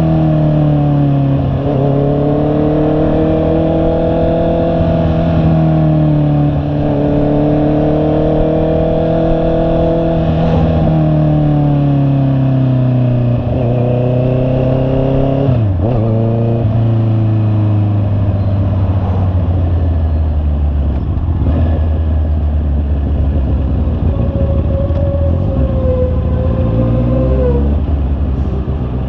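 Honda CB650R's inline-four engine under way: revs climb and drop sharply again and again through gear changes in the first half, then the engine runs at low, steady revs before the sound fades out at the very end.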